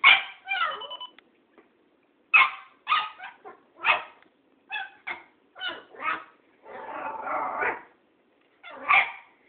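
A young Cairn terrier barking in a string of short, high barks with pauses between them, and one longer, rougher sound about two-thirds of the way through.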